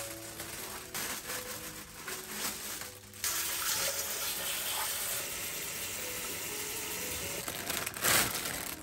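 Kitchen tap running steadily into a stainless steel bowl of leafy greens in the sink, starting about three seconds in. Before it come plastic vegetable bags rustling, and near the end a brief louder rush as bean sprouts slide out of their plastic bag into a bowl.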